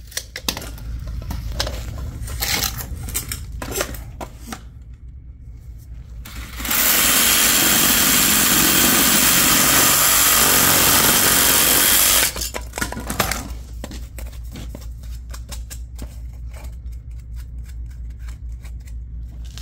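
Cordless power saw running steadily for about five and a half seconds, starting about seven seconds in, as it cuts through black plastic drain pipe. Scattered clicks and rustles of the pipe being handled come before and after the cut.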